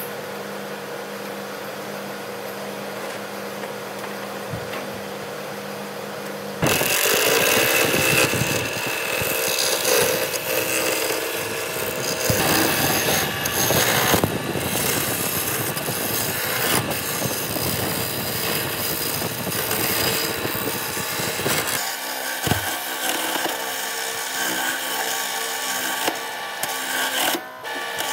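Wood lathe running with a steady hum. About six and a half seconds in, a hand-held turning chisel starts cutting the spinning square wooden blank, giving a loud, rough scraping chatter of wood being turned down to a cylinder, which goes on with small changes.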